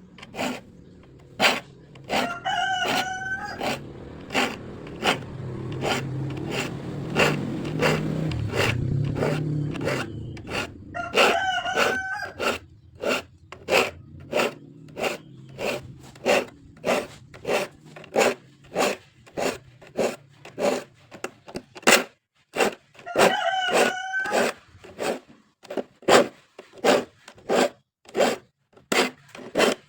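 Rhythmic scraping strokes of a file sharpening a hand saw's teeth, about two a second. A rooster crows three times in the background, and a low hum runs through the first half.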